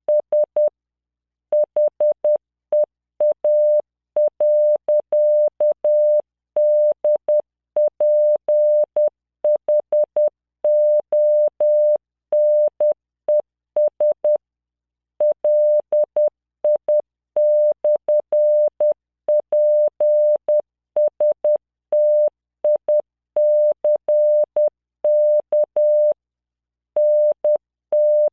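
Computer-generated Morse code practice tone from LearningMorse: a single 600 Hz beep keyed into dots and dashes at 10 words per minute, with longer gaps between letters and words and a faint click at the start and end of each beep.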